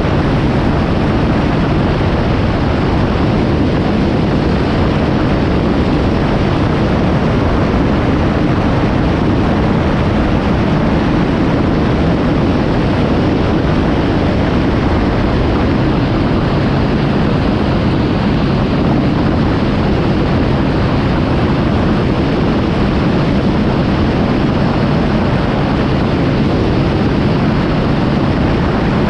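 Kawasaki Z750 motorcycle ridden at a steady speed: the engine's even drone under a heavy, constant rush of riding wind on the microphone.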